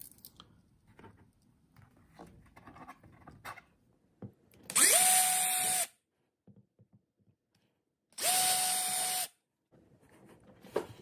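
Handheld power drill run in two short bursts of about a second each, about five and eight seconds in. Each time the motor whines up to speed and holds a steady pitch while drilling holes in the wall for the thermostat's mounting screws.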